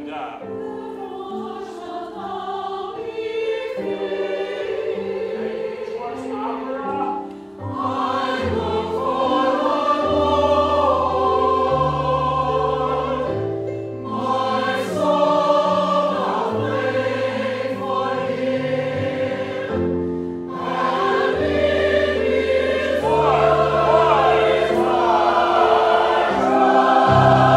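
Mixed choir of men's and women's voices singing sustained chords in several parts, in phrases broken by short pauses, and growing louder toward the end.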